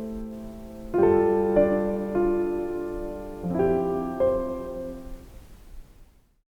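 Background piano music: soft chords struck every second or so, with single notes over them, fading out near the end.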